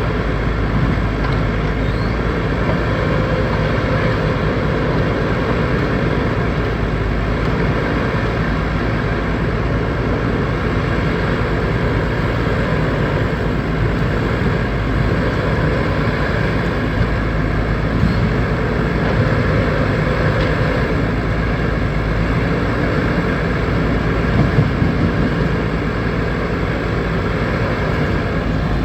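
Backhoe loader's diesel engine running steadily while working, its pitch wavering up and down a little as the load changes.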